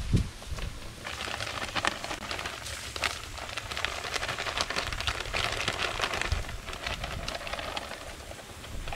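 Granular deer attractant poured and shaken from a bag, pattering onto bare dirt as a steady hiss of many fine ticks that starts about a second in, after a short thump.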